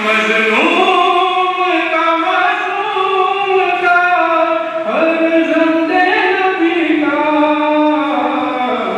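Voices chanting a noha, a Shia mourning lament, in long drawn-out sung phrases. The melody rises sharply about half a second in and again about halfway through.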